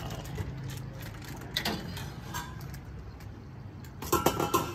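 Steady low engine-like rumble of street ambience, with a few sharp metal clinks, like ladles against steel pots, near the end.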